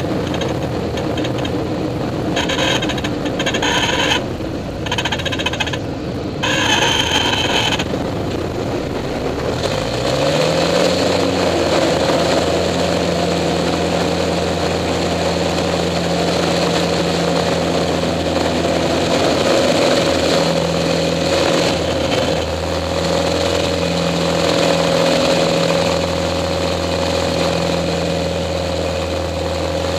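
Pitts S-2A biplane's four-cylinder Lycoming engine and propeller running, heard from the cockpit with air rushing past. The engine note rises about ten seconds in as power comes up, then holds steady at high power. Patches of higher hiss come and go in the first several seconds.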